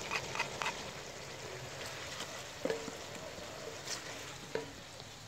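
Onion, tomato and green chilli masala sizzling gently in oil in a kadhai, just after ginger-garlic paste with water has gone in. A few quick metallic clicks, like a spoon against the pan, come in the first second.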